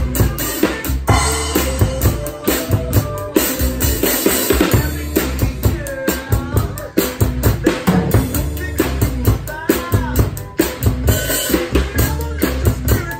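Drum kit with Zildjian ZBT cymbals played in a steady funk groove, kick, snare and cymbals, along with a recorded song whose bass line and vocals run underneath.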